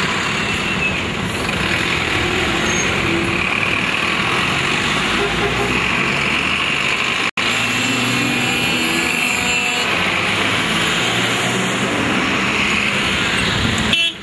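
A convoy of Mercedes-Benz box trucks driving by, a steady mix of diesel engine and road noise. It drops out for an instant about seven seconds in.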